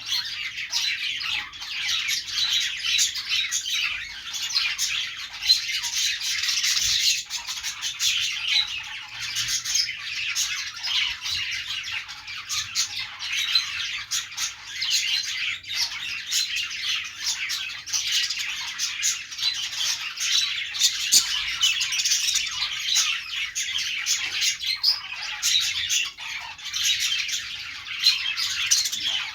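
A flock of budgerigars chattering, a dense, continuous mix of warbles, chirps and squawks.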